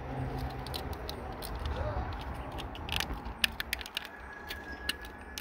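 Hollow plastic casing of a cut-down grill lighter clicking and rattling in the hands as its two halves are fitted back together, with a run of sharp clicks from about halfway through.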